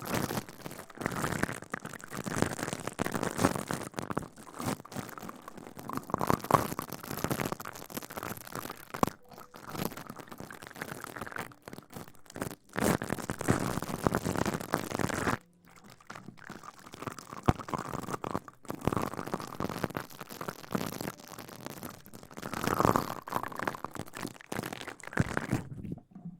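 Close-miked ASMR rustling and scratching: irregular swells of crinkly, scrubbing noise with many small crackles, briefly dropping away about halfway through.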